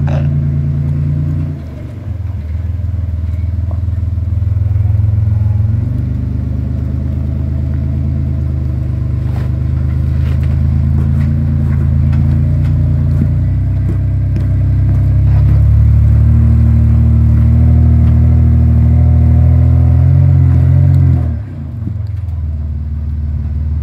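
Toyota 4Runner's engine working under load as the truck crawls up a rock ledge, held at steady revs. It drops off briefly about a second and a half in, then picks up again, runs loudest in the last third, and drops off once more near the end.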